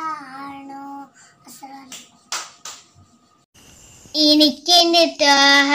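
A young child singing: the first second holds the end of a sung phrase, followed by a short gap with a few clicks and breaths. About four seconds in, another child starts singing a Malayalam devotional song, loud and clear.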